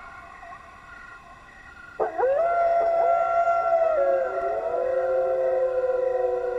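Several wild canids howling together. Faint held notes at first, then about two seconds in a loud howl sweeps up and holds a long steady note, joined by other overlapping howls at lower pitches that slide up and down.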